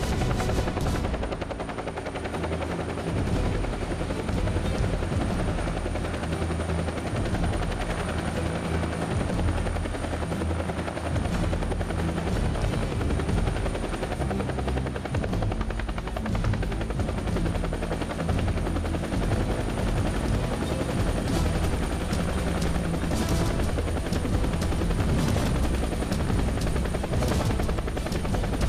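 Military Bell UH-1-type (Huey) helicopter flying in low and close, its main rotor beating steadily over the turbine's whine.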